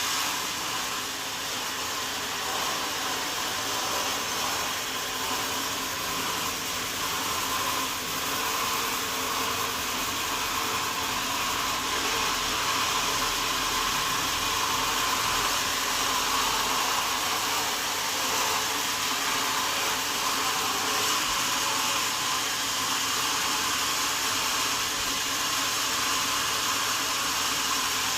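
Sawmill saw running with a steady, continuous whirring noise.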